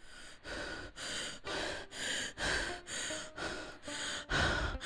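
A young woman breathing fast and heavily, quick breaths in and out at about two a second, like hyperventilating: the sign of an anxiety attack.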